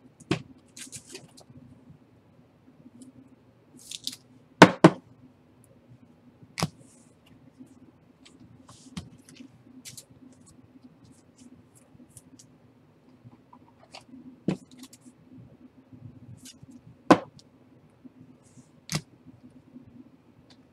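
Trading cards and packs being handled on a table: scattered clicks and taps, brief rustling scrapes, and a few sharp knocks, the loudest a double knock about four and a half seconds in and another about seventeen seconds in.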